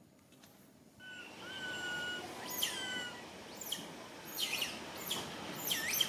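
Baby macaque crying in distress. After a quiet first second come a couple of flat, high piercing notes, then about five shrill calls that each slide steeply down in pitch.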